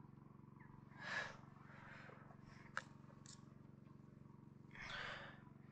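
Near silence over a steady low hum, broken by two short breathy exhalations close to the microphone, one about a second in and one near the end, with a single sharp click between them.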